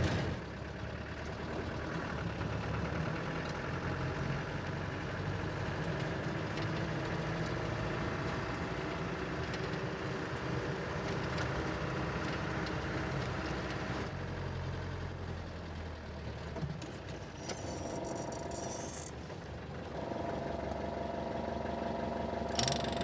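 Four-wheel-drive vehicle driving over rough ground, heard from inside the cab: a steady engine hum whose note shifts a few times.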